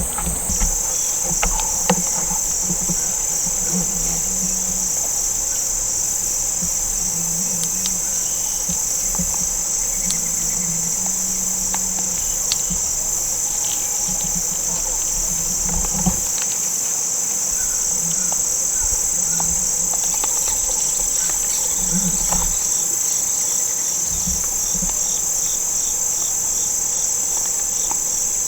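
Steady, high-pitched chorus of crickets and other insects, with a few faint clicks and knocks in the stand now and then.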